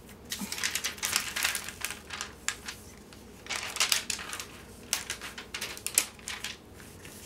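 Hands rubbing and pressing on a diamond painting canvas covered with clear plastic film, the film and paper rustling and crinkling in irregular bursts.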